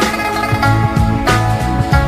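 Background music with a steady beat: sustained instrumental notes over a bass line.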